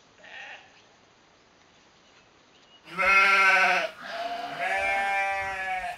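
Sheep bleating twice: a loud call about three seconds in, then a longer wavering bleat that runs to the end.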